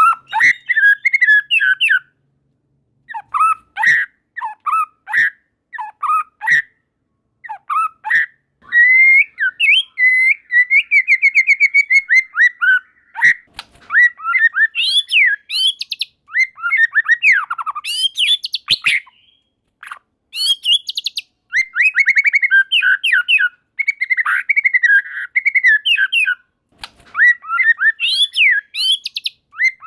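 White-rumped shama singing a varied song of loud whistled phrases, rapid trills and sharp high notes, broken now and then by short pauses.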